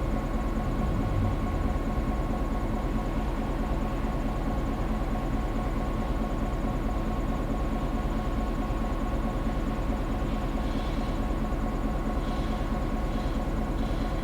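EMD GP9 diesel-electric locomotive's 16-cylinder two-stroke engine running steadily. About ten seconds in, a short high-pitched sound starts repeating roughly once a second.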